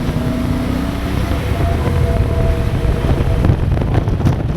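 Motorcycle running under way at road speed, with steady low engine and road noise and wind rumbling on the microphone.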